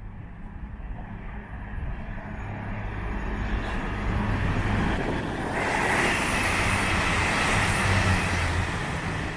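Class 222 Meridian diesel multiple unit passing through at full speed: the engine note and wheel-on-rail noise grow steadily louder as it approaches, with a sudden surge of rushing noise about five and a half seconds in as it sweeps past.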